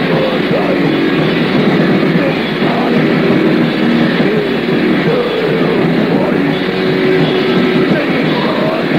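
Fast, dense heavy metal with distorted electric guitars and drums playing without a break.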